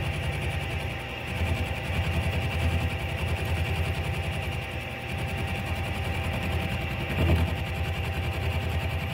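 Milling machine running with its end mill cutting along the edge of a metal plate: a steady motor hum under a fast, even rhythm from the cutter, with a brief louder swell about seven seconds in.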